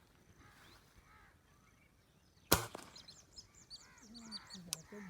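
A single air rifle shot about two and a half seconds in, the loudest sound, followed at once by a rapid run of high, falling bird chirps. Crow-like caws sound throughout, with a second, smaller click near the end.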